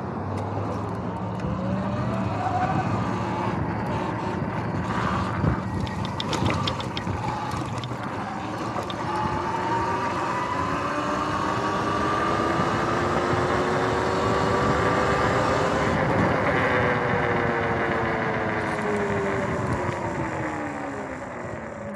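Sur-Ron X electric dirt bike's motor whining under way, over wind and tyre noise. The whine rises in pitch through the middle as the bike speeds up and falls again near the end as it slows.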